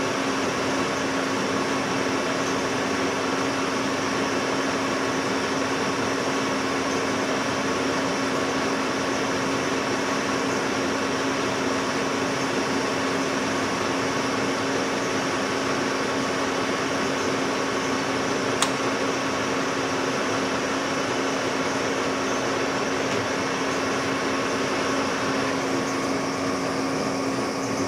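Metal lathe running steadily as it takes a turning cut along a steel jack screw: a continuous motor and gear hum with a steady low tone over the hiss of the cut. A single sharp click about two-thirds of the way through.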